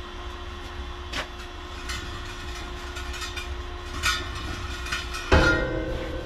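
Shot-blast cabinet's wheel rotisserie running with a steady low hum. A few light knocks and one loud metal clank, about five seconds in, come from a steel wheel being handled.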